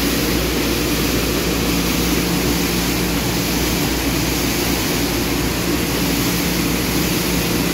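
Belt conveyor running with a steady stream of green coffee beans pouring off its end onto the dump grate, a continuous hissing rush over a steady machinery hum.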